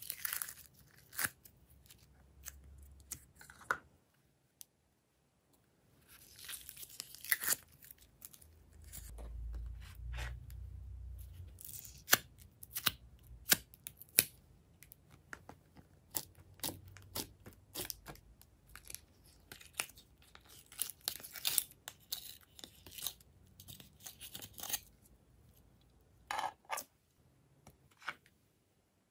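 Glossy slime being peeled out of its containers and handled onto a tray of slime: sticky tearing and crackling with many sharp clicks and pops, in bursts with short pauses.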